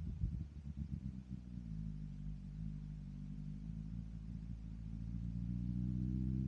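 BMW S1000RR inline-four with an M4 exhaust running on the road: an uneven low rumble at first, settling into a steady exhaust note whose pitch and level climb slowly near the end as the revs build.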